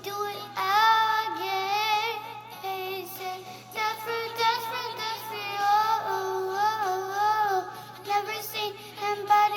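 A young girl singing solo in a high voice, holding and bending notes through a continuous melodic line.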